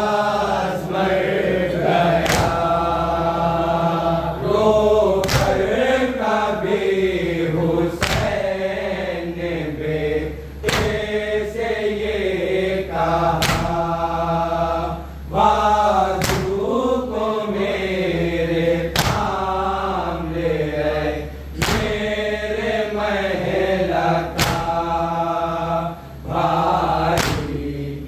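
A group of men chanting an Urdu noha, a Shia mourning lament, in unison. A sharp strike falls together on the beat about every three seconds, typical of the chest-beating (matam) that keeps time for a noha.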